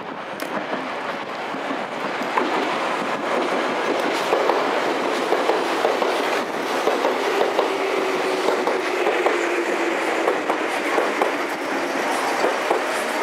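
Meitetsu red electric train running slowly into the platform: a steady rumble with wheels clicking over the rail joints, and a low squeal from the wheels for a few seconds past the middle.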